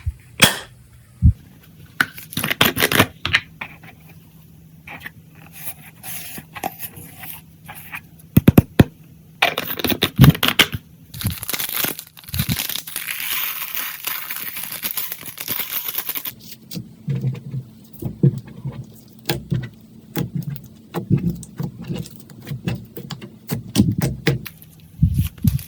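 Clear slime being kneaded and stretched by hand: sticky clicks and pops, with a longer spell of crackling and tearing about halfway through.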